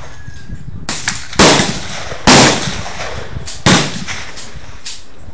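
.308 AR-10-pattern semi-automatic rifle firing three loud shots about a second apart, each with a short echoing tail, after a fainter crack about a second in.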